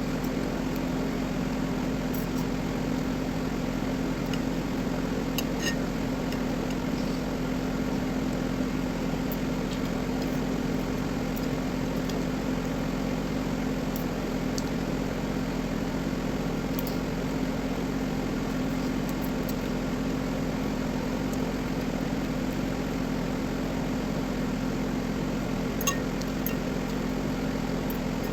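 Steady mechanical hum, with a few faint clicks and one sharper click near the end.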